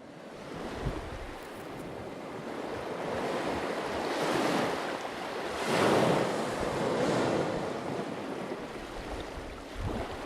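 A rushing noise like surf, swelling and ebbing several times and loudest about six seconds in.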